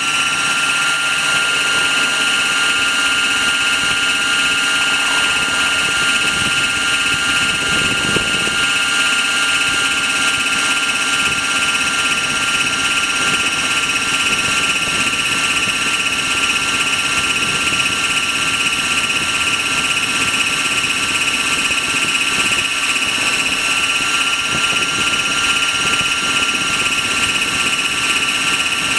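Trex 600 radio-controlled helicopter in flight, heard at close range from a camera on its landing skid: a steady high-pitched whine from the drive and rotor over a constant rushing noise.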